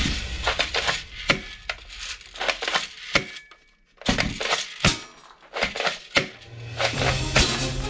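Toy gun being handled: a run of irregular sharp plastic clicks and clacks, with a brief pause about three and a half seconds in. Background music comes in near the end.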